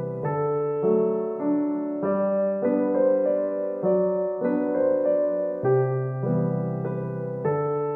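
Background piano music: an unhurried, gentle melody over sustained chords.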